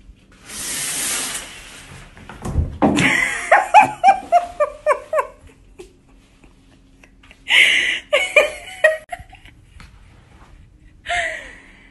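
Shower curtain swishing as it is pulled aside, then a person laughing hard in a run of falling pulses. Shorter breathy bursts of laughter follow twice.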